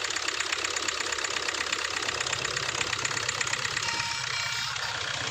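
Hyundai i20's common-rail diesel engine idling with a fast, even clatter.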